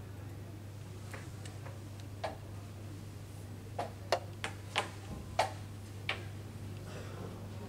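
Irregular series of about seven sharp wooden clicks, bunched in the middle: chess pieces set down on a wooden board and chess clock buttons pressed during a rapid game. A steady low hum runs underneath.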